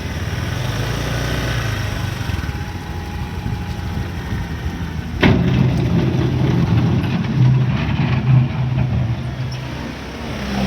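Diesel engine of heavy earthmoving machinery running steadily, with a sharp knock about five seconds in, after which the engine works harder and louder for a few seconds.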